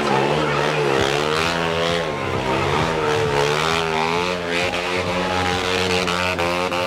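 KTM motorcycle engine revving during a stunt, its pitch rising and falling repeatedly as the throttle is worked.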